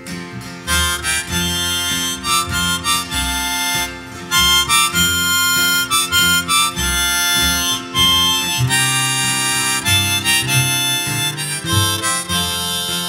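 Harmonica playing an instrumental break over strummed acoustic guitars and plucked upright bass in a bluegrass-style gospel song.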